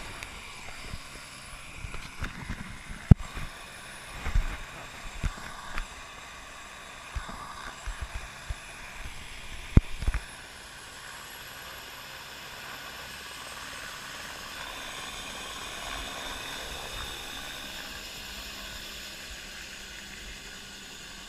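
Handling noise from an action camera on a metal hoop rig: irregular bumps and rubbing with sharp knocks about three and ten seconds in. After that a steady hiss-like background carries on, swelling slightly in the middle.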